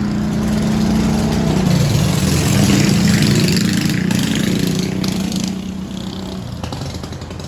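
A motor vehicle's engine going by close at hand, growing louder to a peak about three seconds in and then fading away.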